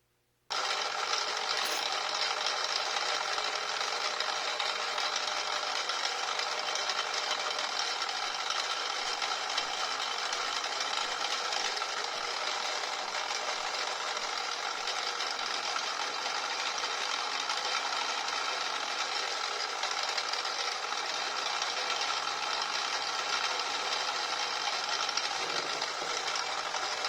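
Mini milling machine running steadily, its spindle motor and gears whining, as a number 4 center drill starts a hole. The sound starts suddenly about half a second in.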